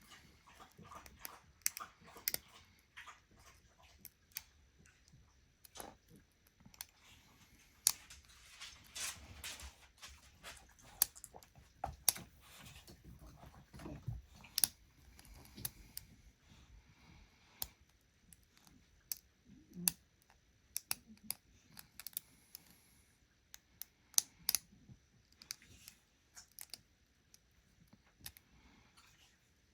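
A lock pick and tension tool working the pins of a handmade challenge lock: irregular, unevenly spaced small metallic clicks and light scrapes.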